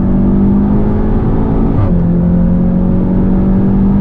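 Seat Leon Cupra 290's turbocharged 2.0-litre four-cylinder under hard acceleration, heard from inside the cabin, its note climbing steadily. About halfway through a brief crack and slight dip in pitch marks an upshift, and the note then climbs again.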